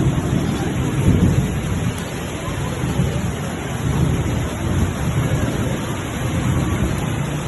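Heavy rain in a thunderstorm: a steady hiss of rain with low, rolling rumbles swelling and fading underneath.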